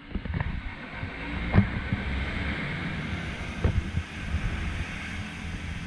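Rumble of a 4x4 vehicle on the move, with wind buffeting the microphone and a couple of sharp knocks from the ride, about a second and a half in and again near four seconds.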